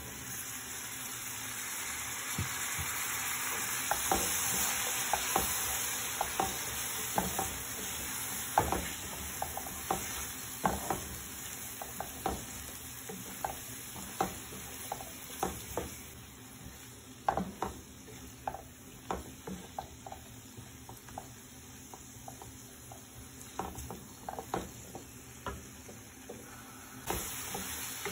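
Chopped onions and spices frying in oil in a frying pan while being stirred. The sizzle is strongest in the first several seconds and then eases, with frequent short taps and scrapes of the utensil against the pan.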